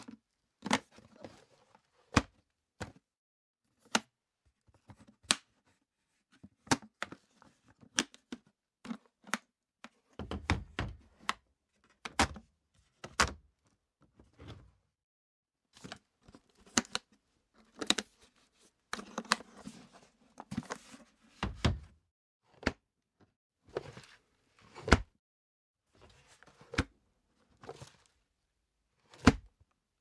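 Aluminum attaché case being opened and closed: a string of sharp metallic latch clicks and clunks, irregularly about one a second, with a few denser stretches of heavier clunks and scraping, around ten seconds in and again around nineteen to twenty-two seconds in.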